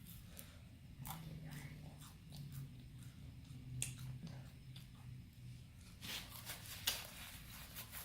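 Close-up eating sounds: food being bitten and chewed, with scattered small clicks and a louder burst of noise about six seconds in.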